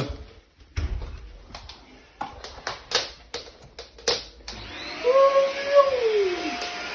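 Clicks and knocks of plastic parts being handled and fitted on a MooSoo stick vacuum cleaner. About four and a half seconds in, its motor switches on and runs with a steady whir.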